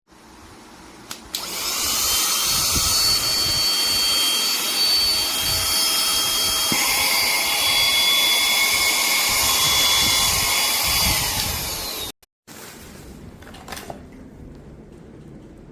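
Cordless handheld car vacuum cleaner running, a steady rushing airflow with a high-pitched motor whine. It starts about a second in, the whine shifts in pitch about halfway through, and it cuts off abruptly near the end, leaving a quieter low background noise.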